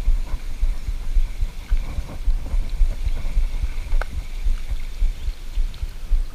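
Low, irregular rumbling buffeting from wind and handling on a rod-mounted action camera's microphone as a spinning reel is cranked to bring in a fish, with a few faint clicks.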